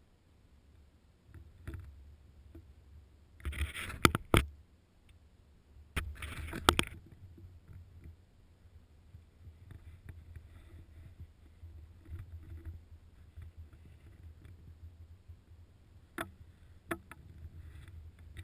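Low wind rumble on the microphone, broken by two bursts of rustling with sharp knocks about four and six and a half seconds in, and two single clicks near the end.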